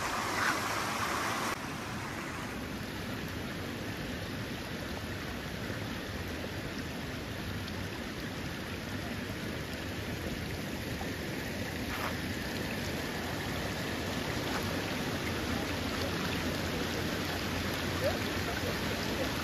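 Small waves washing steadily onto the shore of a sandy beach.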